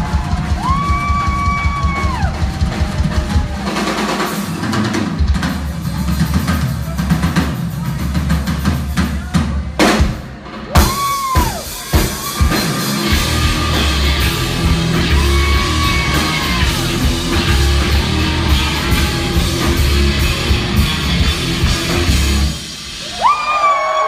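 Rock drum kit solo played live: rapid bass drum strokes and rolls across the kit, heard through a phone's microphone in a loud club. The drums stop near the end and the crowd whoops.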